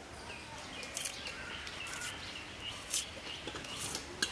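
Birds chirping, with a few short sharp crackles of dry onion skin being peeled off by hand.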